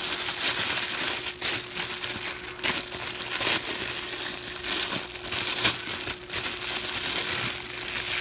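Clear plastic packaging bag crinkling as it is handled and pulled open, with frequent sharp crackles.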